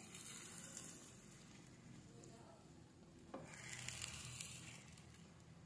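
Egg-coated eggplants frying in oil in a nonstick pan, sizzling faintly. The hiss grows louder near the start and again from about three and a half seconds in, with a light knock just before the second rise.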